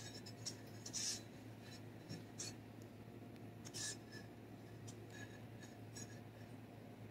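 Soft, faint scraping of a silicone spatula spreading thick cream cheese icing across a cake layer, a few strokes roughly a second and a half apart, over a low steady hum.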